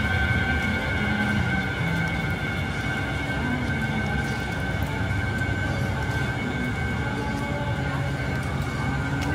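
Steady city street noise with a continuous high-pitched whine held on one pitch throughout.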